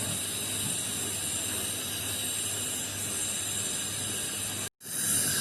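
Brazing torch flame hissing steadily while refrigerator pipe joints are brazed with silver solder, with a brief break near the end.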